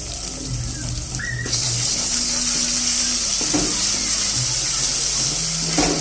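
Chicken mixture frying in hot oil, a steady sizzle that gets louder about one and a half seconds in. Two short knocks come, one just past the middle and one near the end.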